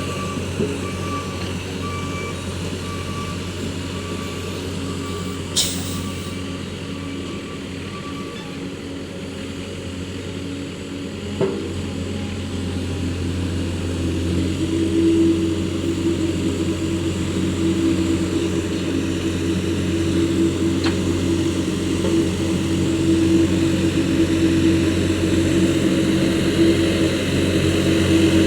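Diesel engine of heavy road-construction machinery running steadily, growing louder in the second half. A reversing alarm beeps repeatedly during the first third, and there are a couple of sharp clicks.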